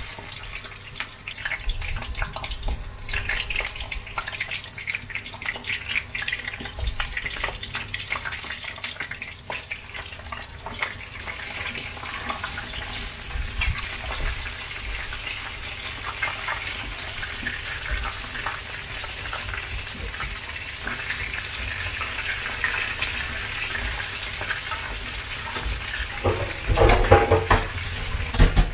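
Battered shrimp deep-frying in hot oil in a pan: a dense, continuous crackling sizzle of bubbling oil, with a louder burst near the end.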